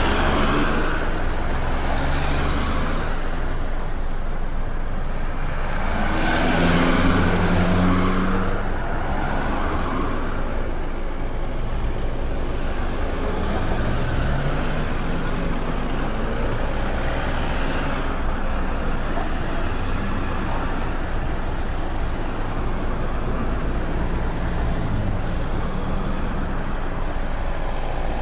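Busy city street traffic: cars and trucks running and passing in a steady wash of engine and tyre noise, with one vehicle passing louder about seven seconds in and an engine rising in pitch as it speeds up a few seconds later.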